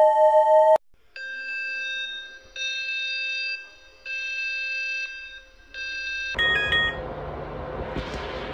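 Synthesized emergency-alert tones: a steady two-tone alarm cuts off under a second in. Four electronic tones follow, each about a second long with short gaps, the last shorter. Near the end comes a quick descending run of notes over a loud, steady hiss and rumble.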